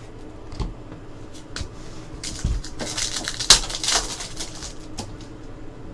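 A foil trading-card pack being torn open, its wrapper crackling loudest about three and a half seconds in. Cards being handled make scattered clicks and a few soft thumps around it.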